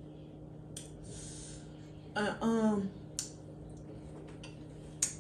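Close-miked eating sounds: a sharp breath through the nose about a second in, a short voiced hum just after two seconds, then wet mouth clicks as seafood is bitten and chewed. A low steady electrical hum runs underneath.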